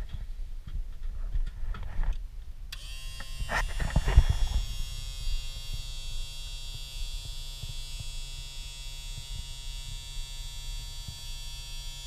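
A Rule 500 GPH electric bilge pump kicks on by itself about three seconds in, after a few knocks, and runs with a steady buzzing hum, with a brief rush of noise just after it starts. Its switching on unbidden means the fault that keeps it running nonstop is still not fixed.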